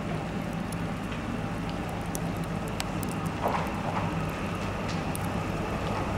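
Steady patter and hiss of falling water, with scattered sharp drips and crackles. A low steady hum underneath grows slightly louder toward the end as a train approaches.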